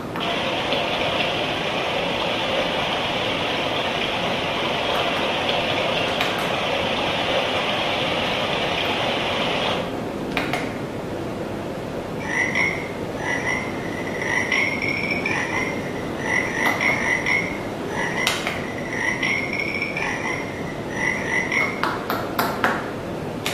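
Sound clues played through the small speaker of the electronic dragon-rock unit of Ravensburger's 'Wo war's?' board game: a steady rushing noise for about ten seconds, then a recorded frog croaking in short repeated bursts.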